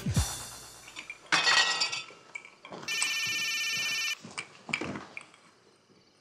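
A glass clinks on a glass bar tray about a second in. Then a mobile phone rings with an electronic ringtone: one ring of just over a second, about three seconds in, at a steady level.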